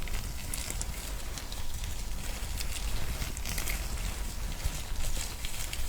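ASMR massage sounds made by hands rubbing and pressing on the microphone: dense crackly rustling with many small clicks over a low rumble from handling.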